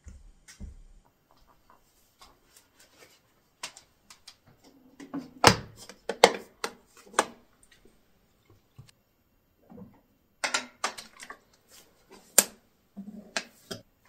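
A few soft footsteps, then a scattered series of sharp clicks and knocks as things at a window are handled, bunched in two runs.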